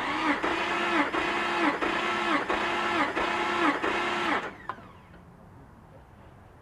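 Starter motor cranking a Jeep TJ's 4.0-litre straight-six with the spark plugs out and the throttle floored, for a compression test. The whine dips and recovers in an even beat, about three times every two seconds, as the gauged cylinder comes up on compression. It stops after about four and a half seconds.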